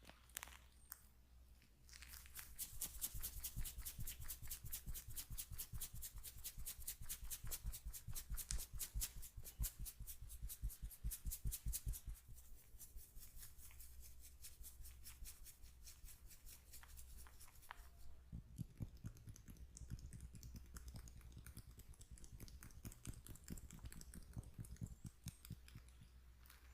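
Hands tapping and patting rapidly on the body during a massage: a fast, even rhythm of crisp strokes that starts about two seconds in, then goes on lighter and less regular after about twelve seconds.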